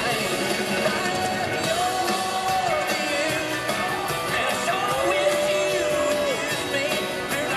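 Live country-rock band playing loudly, with singing and electric guitar; two long held notes stand out over the band, the first about two seconds in and the second about five seconds in.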